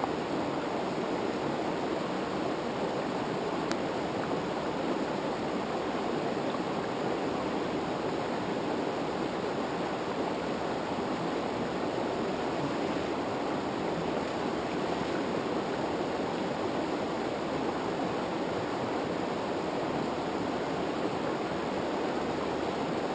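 Rushing water of a mountain river's rapids, a steady, even roar that does not change.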